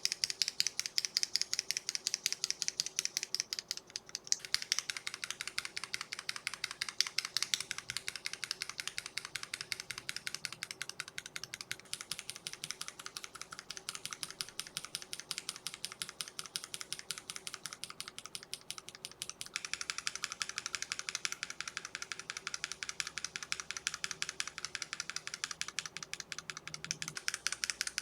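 Mechanical keyboard switches with keycaps on, mounted in a switch tester, pressed rapidly and repeatedly: quick clacks, several a second. The sound changes character about every seven seconds as the tester moves on to a different switch, starting with a Cherry MX RGB Red.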